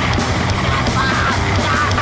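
Loud, dense grindcore/noise music: heavily distorted guitars and drums in a continuous wall of noise, with wavering high-pitched tones running over it.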